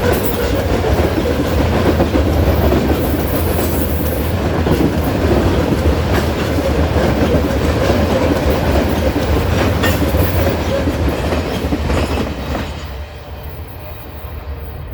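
Freight train rolling past close by: steady rumble of the wheels with clickety-clack over the rail joints. The sound drops off noticeably near the end as the train's end passes.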